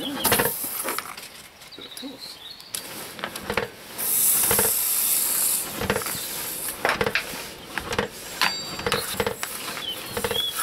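Hot forged steel coat hook held in a tin of wax, sizzling with a short hiss at first and a louder, high hiss lasting under two seconds about four seconds in: the wax finish melting and burning onto the hot metal. A series of light knocks and scrapes of tools on metal follows.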